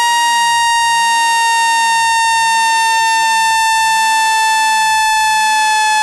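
Loud, steady synthetic buzzing tone from a water-eject sound track, meant to shake water out of a phone's charging port. Its pitch slides very slowly downward.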